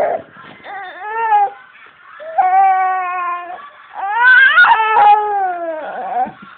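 A young boy wailing in long drawn-out cries: a short yelp, then three long cries, the last rising in pitch and then sliding down.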